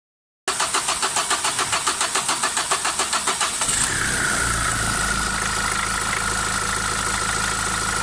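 Renault 1.5 dCi four-cylinder diesel cranking on the starter with an even beat of about six to seven compressions a second for some three seconds, then catching and settling into an idle, a steady high whine coming in as it fires. A hard start, which the uploader links to injectors 1 and 4.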